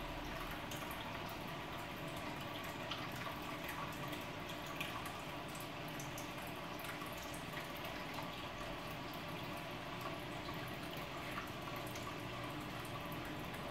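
Aquarium water bubbling and trickling steadily, with many small drip-like pops, over a faint steady hum.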